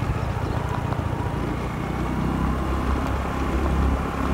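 A small motorbike running steadily while ridden along a paved road, with engine, road and wind noise blending into a continuous low rumble.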